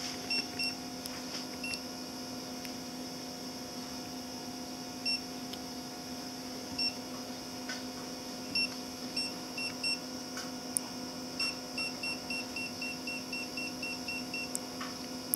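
Hantek digital oscilloscope beeping as its knobs are turned: short high beeps, a few scattered ones at first, then a quick run of about four a second near the end. A steady low hum runs underneath.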